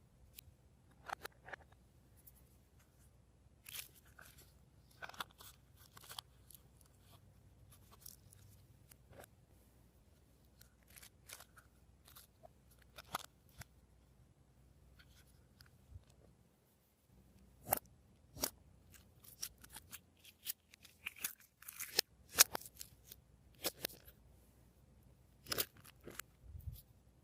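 Glossy slime being worked by hand, giving off irregular sticky clicks and little crackling pops, which come thicker and louder in the second half.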